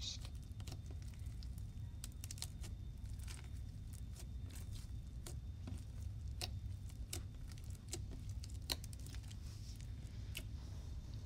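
Crunchy, bead-filled slime being kneaded by hand on a hard surface: scattered small crackles and pops all through, over a low steady hum.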